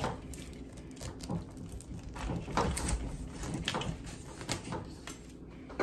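A large kitchen knife sawing into a whole pineapple's tough rind and fibrous flesh: a series of short scraping strokes, about one or two a second.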